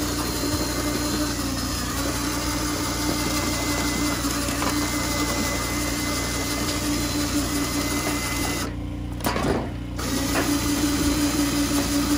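DeWalt cordless drill driving a tin-cutter attachment, running steadily as it cuts through a corrugated metal roofing sheet. It stops briefly about nine seconds in, then starts again.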